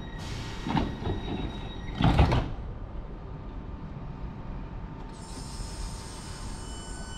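Class 465 Networker electric multiple unit pulling away from the station, a steady rumbling run with two loud rushing bursts in the first two and a half seconds. About five seconds in, a high whine of several steady tones sets in.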